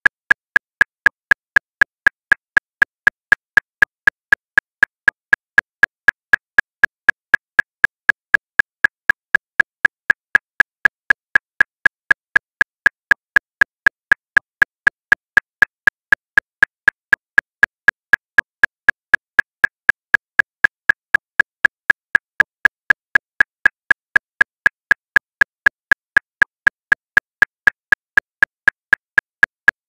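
Metronome clicking steadily at 239 beats per minute, about four even clicks a second, every click alike.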